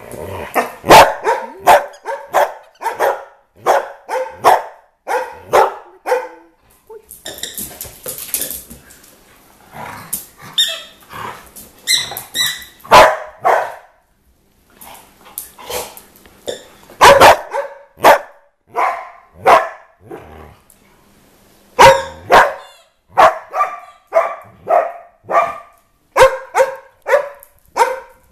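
Small dogs barking excitedly in play, in quick runs of sharp barks two or three a second, with a short lull about halfway through.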